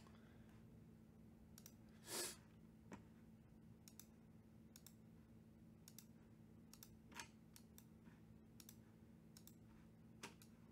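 Near silence: room tone with a low steady hum, broken by faint scattered clicks and one brief, louder noise about two seconds in.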